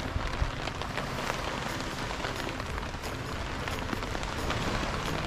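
Steady rain falling on a nylon tent tarp and the grass around it, with many separate drop hits.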